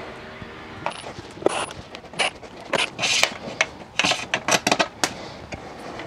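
A series of short, sharp metallic clicks and clinks, about a dozen, some with a brief high ring: hands working the sheet-metal casing and fittings of a small electric water heater.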